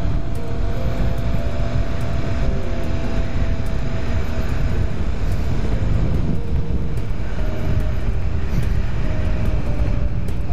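Steady wind rumble over the microphone with the faint, even drone of the Kawasaki GTR 1400's inline-four engine underneath, riding at steady road speed.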